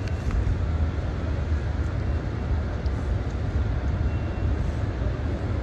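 Steady rain and wind, heard mostly as a low rumble of wind buffeting the microphone with a lighter hiss over it.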